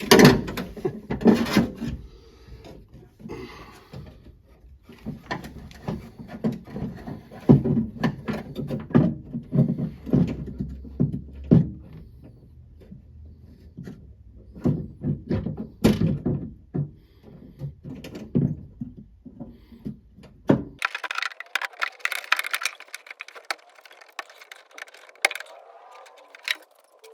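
Flathead screwdriver knocking and scraping inside a 1966 Ford Mustang's steel door while it pries at the outside door handle's retaining clip: irregular clicks and thunks. About 21 seconds in the sound changes abruptly to a thinner metallic rattling.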